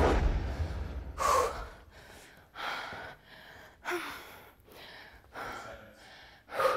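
A woman breathing hard after exercise, with about six heavy gasping breaths spaced roughly a second and a half apart. A low rumble comes in the first second or so.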